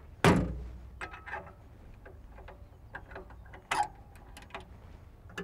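Metal screen lid over the rear cooler of a Cat Multi Terrain Loader dropped shut with a clunk about a quarter second in, followed by small clicks and a sharper metallic click near four seconds as the compartment latch is handled.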